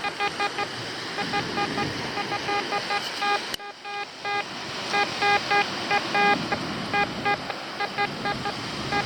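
Quest X10 metal detector giving many short beeps at one pitch, in quick strings, as the coil is swept over ground and picks up targets, over a steady hiss. The beeping breaks off briefly about a third of the way in.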